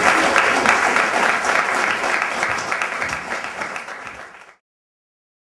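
Audience applauding; the clapping fades out and cuts to silence about four and a half seconds in.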